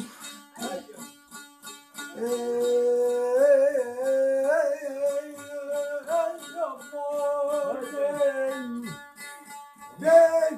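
A man sings long, held notes with trills and wavering ornaments, in Azerbaijani folk style, over a steadily plucked long-necked lute. The voice breaks off near the 9-second mark and a new loud phrase starts about a second later.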